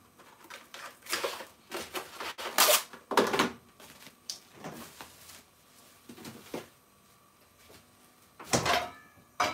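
Kitchen handling noises: a string of short, irregular rustling and scraping strokes with knocks, as plastic cling wrap is fetched and pulled from its roll.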